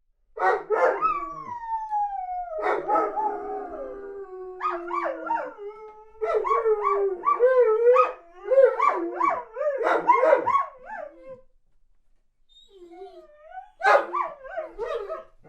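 Weimaraner barking and howling in distress, pining for its absent owner. A couple of sharp barks open, then one long howl falling in pitch, a run of wavering yelping whines and howls, a short lull, and another bark near the end.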